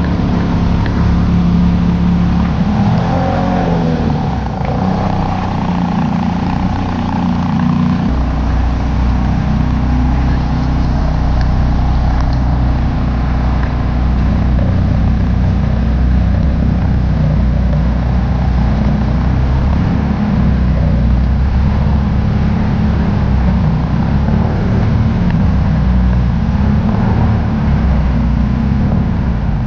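Car on the move: steady engine and road noise, with a low drone that shifts in pitch about eight seconds in.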